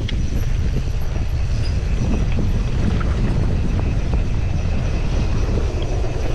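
Wind buffeting the microphone of a moving camera: a loud, steady low rumble with scattered clicks and rattles.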